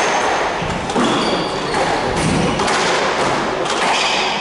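A squash rally: the rubber ball strikes rackets and court walls with sharp hits roughly a second apart, and sneakers squeak briefly on the wooden court floor.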